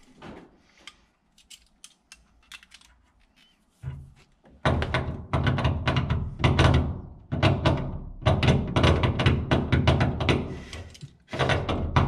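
An adjustable wrench working brass pipe fittings: loud bursts of clattering, scraping metal-on-metal handling, each about a second long with short gaps, starting about four and a half seconds in. Before that there are only a few faint ticks.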